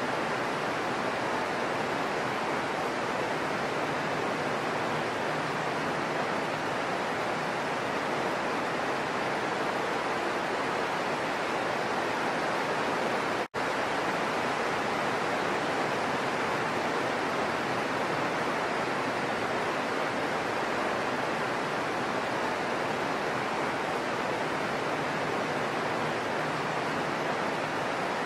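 Heavy rain falling steadily, an even continuous hiss, with a split-second dropout about halfway through.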